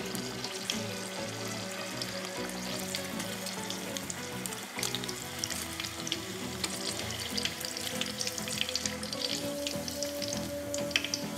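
Breadcrumb-coated risoles deep-frying in hot oil in a wok, a steady sizzle with many small crackling pops as they turn golden brown. A few louder clicks come near the end.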